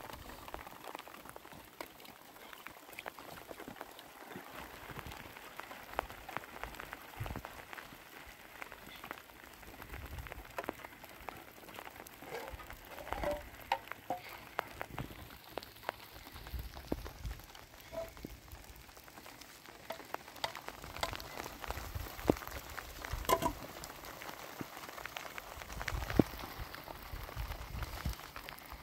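Steady rain falling, with many scattered sharp drop hits and a few louder knocks here and there.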